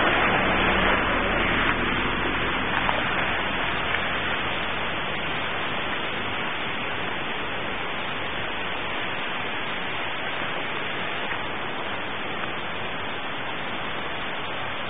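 Steady rushing of a fast-running brook swollen by flooding. A low vehicle engine fades out over the first few seconds.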